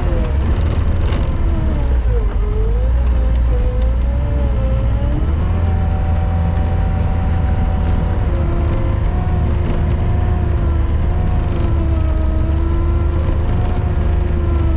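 Gehl RT65 tracked skid steer's diesel engine running at full throttle under load while pushing snow, a steady low drone with a whine above it that wavers up and down in pitch.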